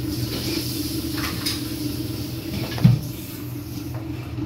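A steady low hum with one short, dull knock about three seconds in.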